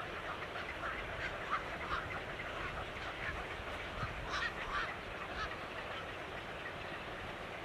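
Birds calling: many short, overlapping calls over a steady background hiss, bunching together about four to five seconds in.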